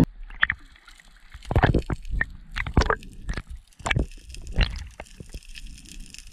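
Water sloshing and gurgling around an action camera at and just below the sea surface, with irregular splashes and knocks.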